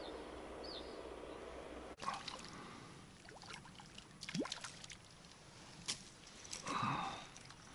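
Water trickling and splashing with light scattered clicks and knocks, after an abrupt cut about two seconds in; the loudest splash comes near the end.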